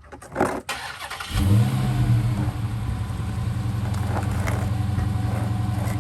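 A 2022 Dodge Hellcat Redeye Widebody's supercharged 6.2-litre HEMI V8 starting about a second and a half in, flaring briefly as it catches, then settling into a steady idle.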